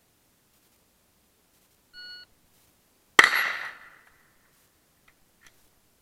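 A short electronic beep, then about a second later a single rifle shot: a sharp crack with a ringing tail that fades within a second. Two faint clicks follow near the end.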